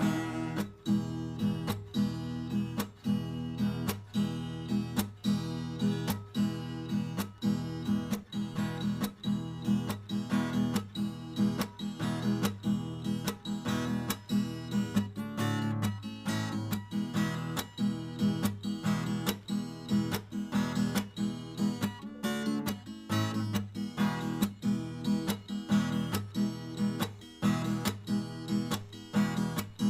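Acoustic guitar strummed in a steady, even rhythm, an instrumental passage with no singing.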